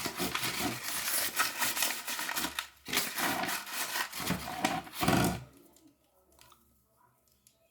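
Crinkling and rustling of packaging being handled, in two stretches of about three and two and a half seconds with a brief break between, then only faint small taps.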